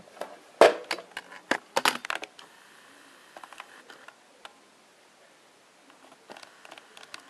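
Plastic telephone housing being handled and turned over on a table: a quick run of knocks and clicks in the first two seconds, the loudest about two-thirds of a second in, then a few faint clicks.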